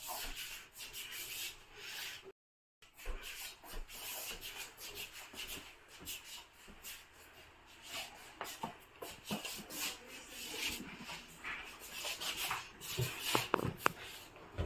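Handling noise from a hand-held phone: rubbing and rustling against the microphone as it is carried and panned around, with small clicks throughout and a few louder knocks near the end. The sound cuts out completely for a moment about two seconds in.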